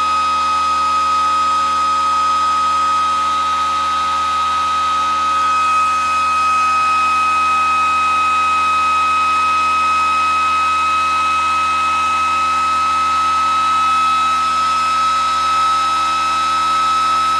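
Home-built pulse motor running fast, its pulsed coils and spinning rotor giving a steady high-pitched whine that holds one pitch.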